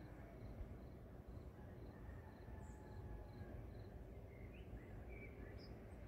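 Faint cricket chirping, an even pulse of about two chirps a second, with a few short bird calls in the second half, over a low rumble.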